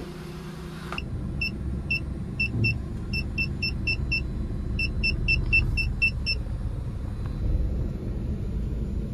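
A small car's engine running with a low rumble, heard from inside the cabin. Over it comes a run of about twenty short, high electronic beeps from the car's warning buzzer, roughly four to five a second with a brief pause midway, stopping about two-thirds of the way through.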